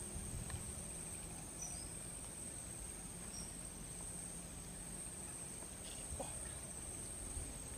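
Steady high-pitched trill of an insect, such as a cricket, over faint outdoor background noise.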